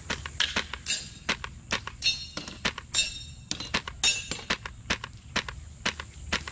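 Polarstar Kythera HPA airsoft rifle firing a rapid string of sharp shots, with BBs striking small metal plate targets that clink and ring, a ringing hit about once a second.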